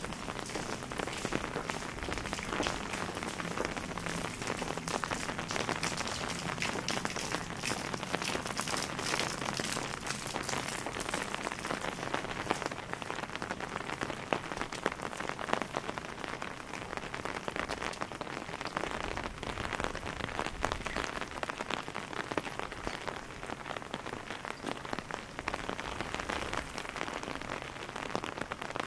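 Steady rain falling on a wet cobblestone street, a continuous hiss thick with close individual drips and splashes.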